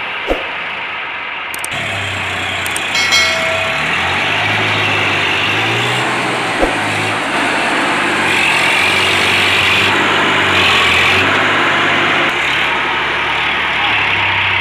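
Massey Ferguson 7250 Power Up tractor's three-cylinder diesel engine running at low speed with a steady low hum, as the tractor creeps through mud. A few short clicks or knocks come through, one about three seconds in.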